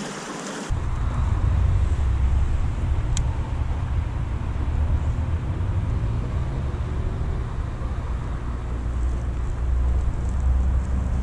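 Trickling water from a culvert outlet that cuts off abruptly under a second in. It gives way to a loud, uneven low rumble of outdoor background noise, with a single sharp tick about three seconds in.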